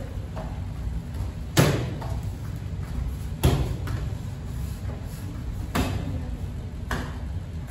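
Taekwondo kicks striking a handheld kicking paddle: four sharp slaps at uneven intervals, with fainter taps between.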